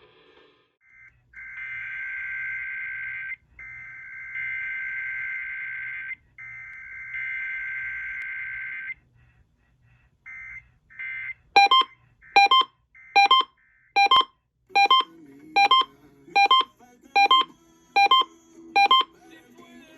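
Emergency Alert System SAME header: three bursts of the warbling two-tone digital data signal, each about two seconds long. After a short pause come about ten evenly spaced electronic beeps, a little under one a second.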